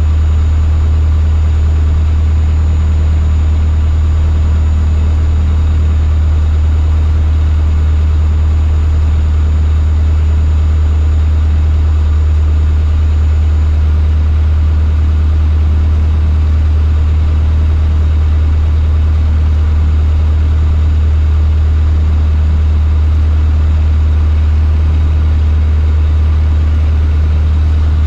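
Cessna 152's four-cylinder Lycoming O-235 engine and propeller running at an unchanging pitch, a loud, steady low drone.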